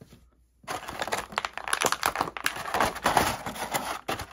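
Clear plastic packaging bag crinkling as a hand rummages in it, a dense crackle that starts a little under a second in and stops just before the end.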